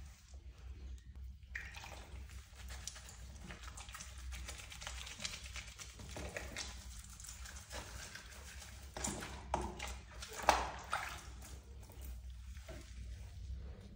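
Water sloshing and splashing in a small plastic tub as hands rub and scoop water over a wet ragdoll cat's fur, with a few louder splashes about nine to eleven seconds in.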